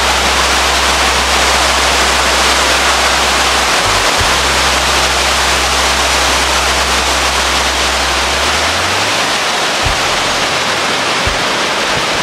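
Water spilling steadily over a wide stepped concrete weir: a loud, unbroken rush of falling water.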